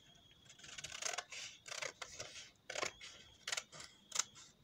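Scissors snipping through a sheet of coloured paper, a series of short, uneven cuts.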